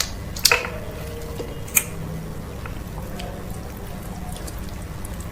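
Close-miked eating of okro soup with fufu: wet mouth smacks and clicks, two sharp ones about half a second and just under two seconds in and a few fainter ones after, over a steady low hum.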